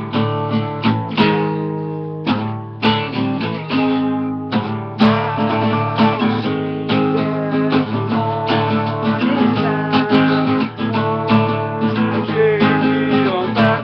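Acoustic guitar strummed in chords, an instrumental passage without singing. It cuts off suddenly near the end.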